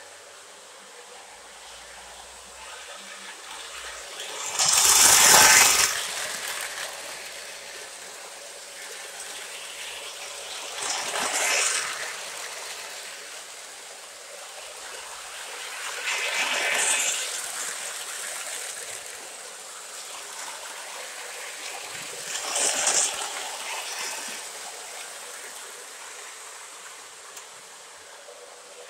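O gauge model trains running on three-rail track: a steady rolling hiss of metal wheels that swells four times, about every six seconds, as the trains pass close by.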